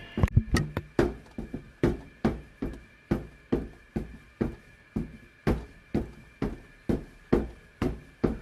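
A steady run of foley thuds or knocks, about two and a half a second, evenly paced. A high steady tone cuts off just after the start.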